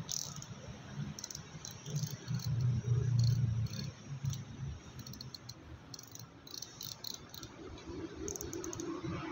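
Spinning fishing reel being cranked by hand while it is serviced: the gears and rotor turn with irregular clusters of light ticking, and a louder low rumble about two to four seconds in.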